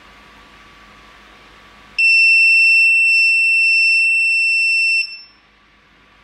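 Warning buzzer of a home-built fall-alert device sounding one steady, high-pitched tone for about three seconds: the fall-warning alarm going off. It starts suddenly about two seconds in and cuts off.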